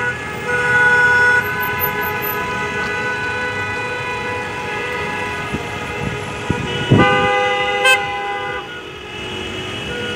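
Car horns in a passing convoy honking together in long, overlapping blasts at several pitches at once, with another horn joining about seven seconds in, over the sound of the cars driving past.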